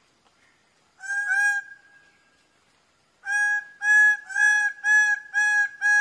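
Greater bird-of-paradise calling: two short loud notes about a second in, then a fast run of loud, steady-pitched calls at about two a second that starts about three seconds in.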